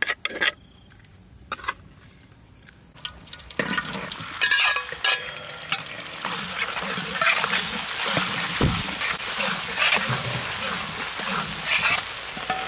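A few soft taps, then from about three and a half seconds in, chopped shallots sizzling in hot oil in a wok while a metal spatula scrapes and stirs them against the pan.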